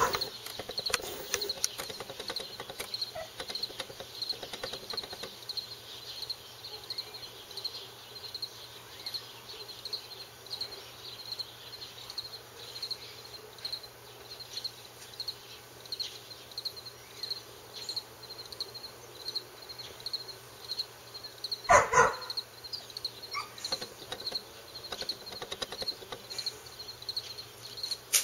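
Insects chirping in a steady, even pulse throughout. About three-quarters of the way through, a dog barks once, loudly and briefly.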